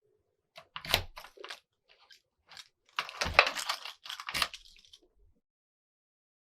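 Foley crunching and crackling: a short run of crackles, a pause, then a longer, louder bout of crunching.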